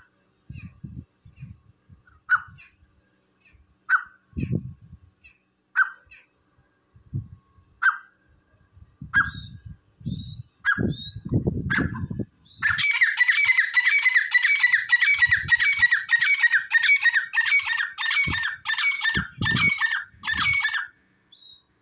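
Caged grey francolins (dassi teetar) calling. For about twelve seconds there are single sharp call notes, one every two seconds or so. Then comes a fast, rhythmic run of repeated call notes, about two or three a second, lasting some eight seconds. Irregular low thuds sound in between.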